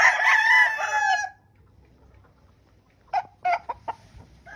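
A gamefowl rooster crowing: one long crow that is already under way and ends about a second in, then a few short clucks about three seconds in.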